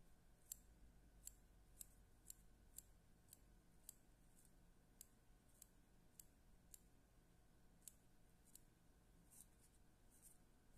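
Small fine-pointed scissors snipping spun deer hair to shape the head of a hopper fly: a run of faint, sharp snips about every half second, a little irregular.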